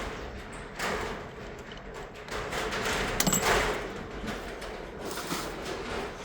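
Hands rummaging through and handling parts and tools: rustling and scraping with a few clicks and knocks, the loudest cluster about three seconds in.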